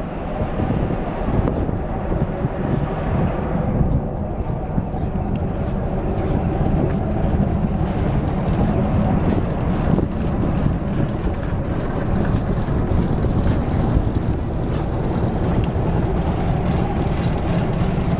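River cruise ship's engines running, a steady low rumble.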